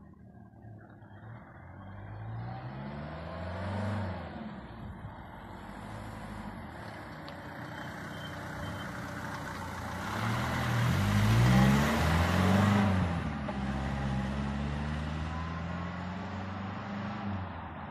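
Mercedes-Benz W123 200D's four-cylinder diesel engine accelerating as the car pulls away and drives past. The engine note climbs, drops at a gear change, and climbs again as the car comes closest about two-thirds of the way in, when it is loudest with tyre noise. It then eases off as the car drives away.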